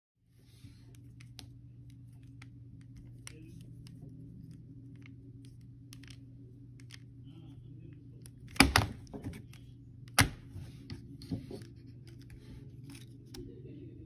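3x3 Rubik's cube being turned by hand, its plastic layers giving irregular clicks, with two loud knocks partway through, over a steady low hum.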